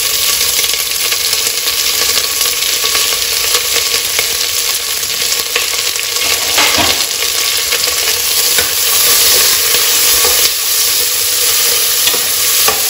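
Sliced onions sizzling as they fry with whole spices in ghee and oil, stirred now and then, with a few sharp clicks of the spoon against the pan.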